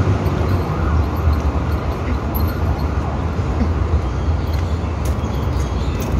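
Steady road traffic noise: a constant low rumble of vehicles passing on the street.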